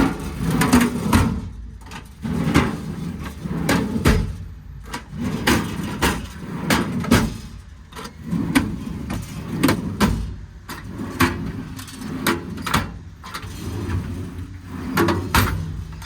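Metal American Eagle tool drawers in a truck service-body compartment sliding open and shut, with many irregular clicks and clunks.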